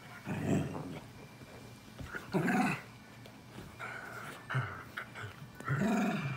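Two dachshunds play-fighting and growling at each other in four short bursts. The loudest come about half a second in, two and a half seconds in, and near the end.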